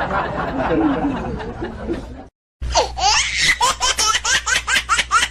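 Laughter. It cuts off about two seconds in and, after a brief gap, gives way to a fast run of high-pitched, rising squeaky laughs, about four a second.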